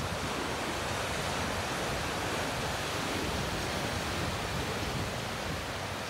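Pacific Ocean surf washing over a rocky shoreline: a steady, even wash of breaking waves and foam.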